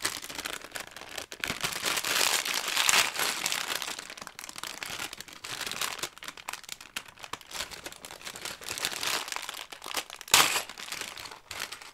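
Clear plastic bag of LEGO pieces crinkling as it is handled and pulled open, with one louder burst near the end.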